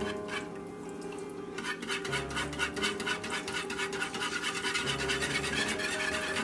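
Wire whisk beating cream of chicken soup and chicken broth in a plastic bowl: rapid, rhythmic scraping strokes, several a second, picking up about a second and a half in.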